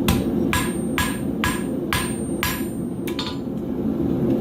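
Hammer blows on a hot horseshoe held on an anvil, about seven ringing strikes roughly two a second, drawing out the point of a knife; the strikes stop a little after three seconds in. A steady low rumble runs underneath.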